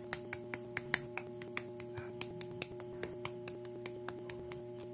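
Small hard-plastic LEGO-compatible bricks clicking as they are pressed and snapped together by hand, a quick run of sharp clicks about four or five a second, over a steady held tone.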